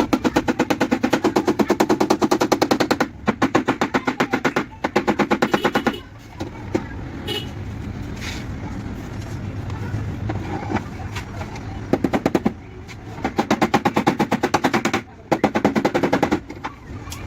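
A tool tapping rapidly on a car body panel during cold dent repair, about ten sharp strikes a second, in several bursts of one to three seconds with short pauses between them.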